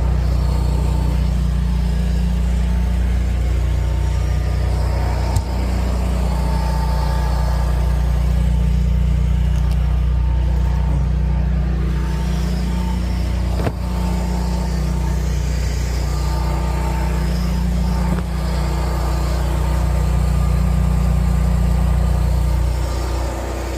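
An engine running steadily at constant speed, a low even drone with a faint steady whine above it. Two sharp knocks come about five and fourteen seconds in.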